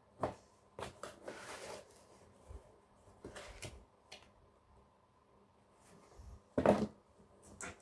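Handling noises in a small room: scattered short knocks and brief rustles, the loudest a single thump near the end.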